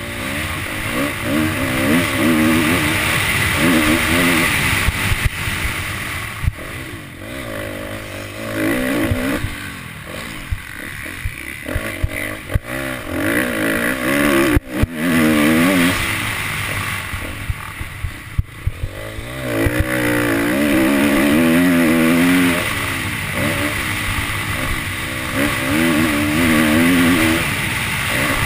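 Motocross dirt bike engine revving hard and backing off again and again as it is ridden round a dirt track, heard from a helmet-mounted camera with wind rushing past the microphone. A few sharp knocks cut in, the loudest about fifteen seconds in.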